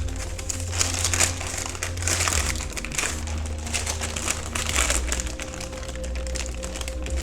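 Crinkling and rustling of a wrapping sheet being handled in short irregular rustles, over background music with steady bass notes.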